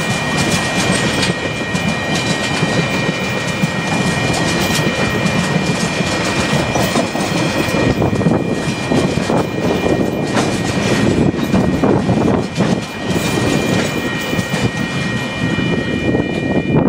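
Empty container flat wagons of a freight train rolling over a level crossing, their wheels clattering and rumbling over the rails, with the last wagon passing near the end. The crossing's warning bell rings steadily over the train noise.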